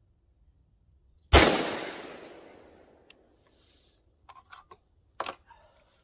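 A single shot from an FN SCAR 17S semi-automatic rifle in 7.62×51 mm, about a second in, with the report echoing and fading over nearly two seconds. A few faint clicks and knocks follow near the end.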